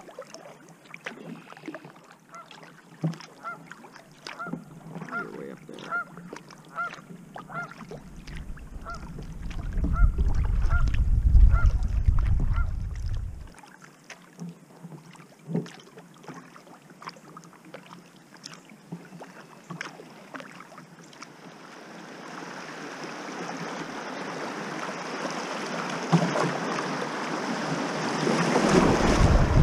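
Repeated short barking calls, about two a second, from squirrels, the alarm calls that set off the complaint about them. A low rumble of wind on the microphone follows for several seconds, and from about two-thirds of the way in the rush of a shallow river riffle grows steadily louder.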